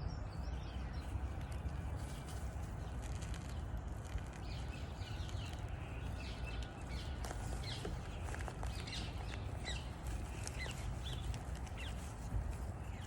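Outdoor nature ambience: wild birds chirping in short, high calls, busiest through the middle, over a steady low rumble.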